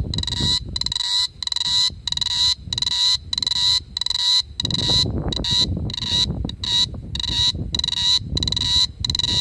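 Cicada calling in a steady, even series of short high-pitched buzzing pulses, about three every two seconds, with a low rumble coming and going underneath.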